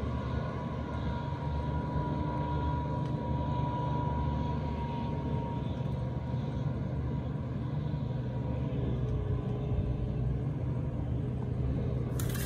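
An engine running steadily, a low continuous hum with a faint steady whine over it.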